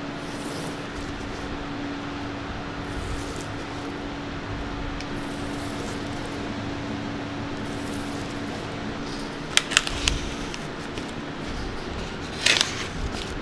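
Steady machine hum with a constant low tone, as from a fan running in a small room. A little under ten seconds in come two quick sharp clicks, and near the end a louder clatter, as a long knife knocks against a plastic cutting board while salmon is sliced.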